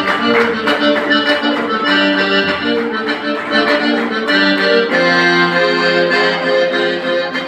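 Accordion playing a fast Caucasian (Circassian) dance tune in quick runs of notes, moving to longer held notes about five seconds in, with a steady beat of handclaps.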